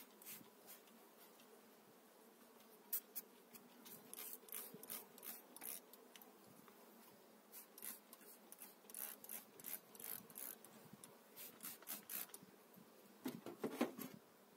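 Faint, irregular scratching and rubbing as gloved hands work over the frames of an open beehive, with a louder cluster of scrapes near the end. A low hum of honeybees runs underneath.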